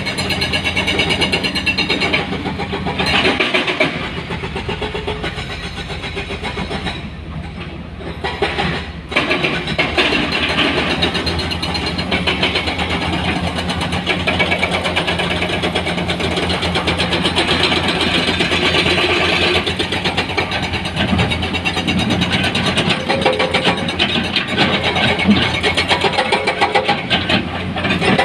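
Heavy diesel engine of a dump truck or excavator running steadily, easing off briefly a few seconds in before picking up again.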